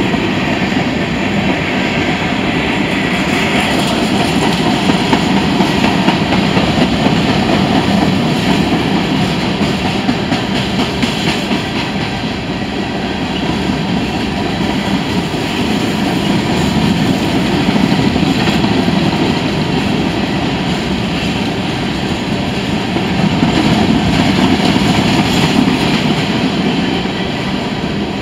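Covered hopper cars of a CSX freight grain train rolling past at close range: a steady, loud rumble of steel wheels on rail that swells and eases slightly as the cars go by.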